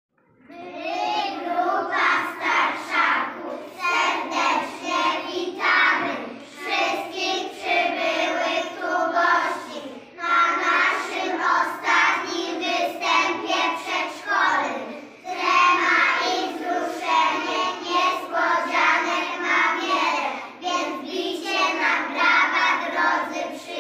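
A group of young children singing a song together in unison, in phrases of a few seconds with short breaths between them.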